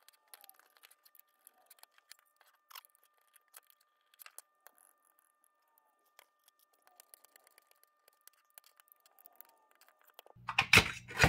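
Faint scattered clicks and ticks of small parts and a metal enclosure being handled during disassembly, with a run of louder metallic clinks about ten seconds in.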